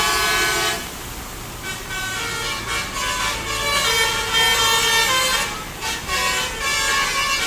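Bus telolet basuri horn, a multi-tone musical air horn, playing a melody note by note, with a short lull about a second in.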